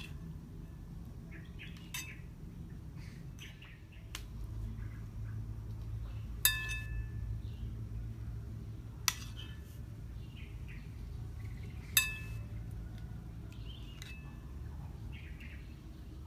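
Metal kitchen utensils clinking against cookware: about six sharp clinks a few seconds apart, the loudest ringing briefly. A steady low rumble runs underneath.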